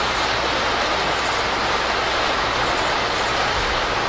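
Steady rushing of river water, with a low rumble coming in near the end.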